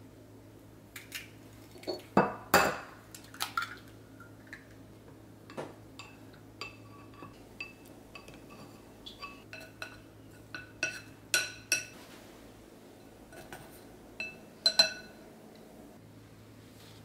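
Wooden chopsticks clinking and tapping against a small glass bowl while beating egg, each sharp tap ringing briefly like glass. The loudest knocks come a couple of seconds in and again near the end.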